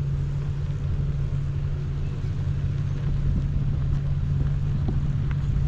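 Car running as heard from inside the cabin: a steady low hum over a low rumble.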